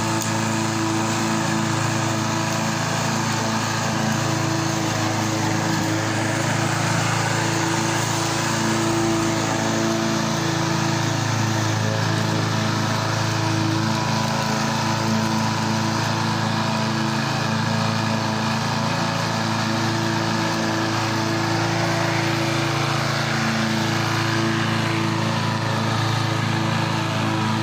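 Petrol walk-behind lawnmower's single-cylinder engine running at a steady, even pitch while the mower cuts grass.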